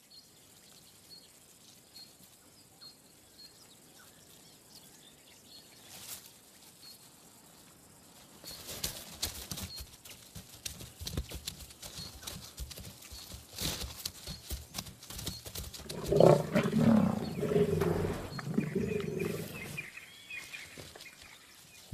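Lions growling and snarling over a freshly killed young giraffe, loudest about two-thirds of the way through. Before that, brush rustling and crackling during the chase, over a faint, evenly repeating chirp.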